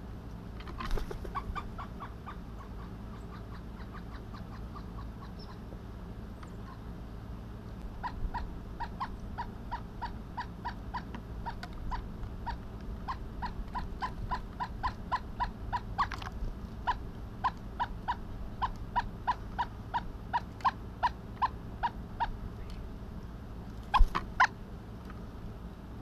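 Pileated woodpecker calling: a long series of evenly spaced 'wuk' notes, about two to three a second, after a shorter run at the start. A few sharp knocks break in, the loudest a pair near the end.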